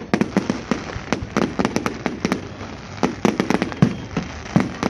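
Fireworks display: a rapid, irregular run of sharp bangs and cracks, several a second.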